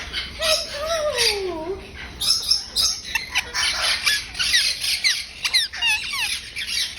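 Indian ringneck parakeet calling: a long falling note, then from about two seconds in a rapid run of harsh squawks mixed with quick whistled chirps.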